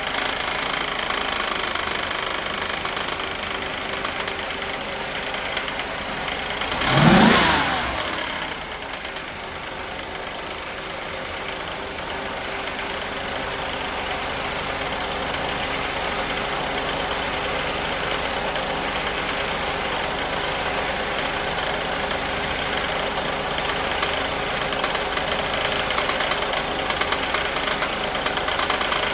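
1988 Mercedes-Benz 560 SEC's V8 engine idling with a persistent knocking noise, the fault the owner is filming. About seven seconds in the revs are raised once and fall back; over the second half the engine grows slightly louder.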